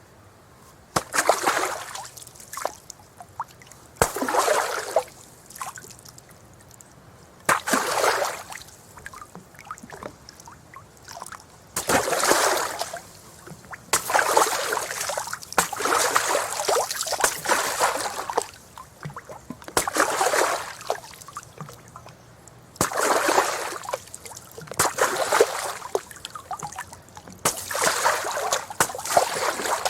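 Rocks thrown into water, splashing one after another at irregular intervals of a few seconds. Each starts with a sharp plunk and dies away in splashing over a second or two; in the middle a few land close together.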